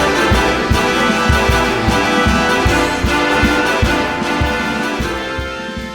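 Background music with a steady beat and brass-like instruments, fading out near the end.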